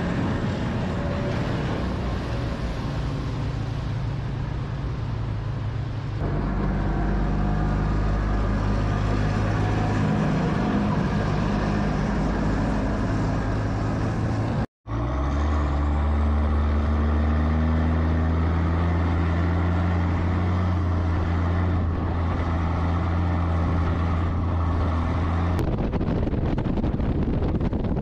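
Military amphibious assault vehicle's diesel engine running with a steady low drone. The sound drops out for a moment about halfway through, then comes back louder and deeper.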